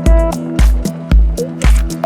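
Electronic background music with a steady four-on-the-floor kick drum, about two beats a second, under sustained synth tones.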